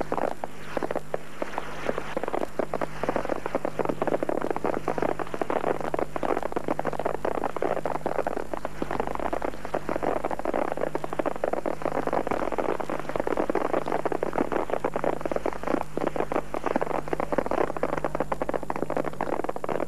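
Fireworks crackling: a dense, unbroken stream of rapid small pops and crackles, over a steady low electrical hum.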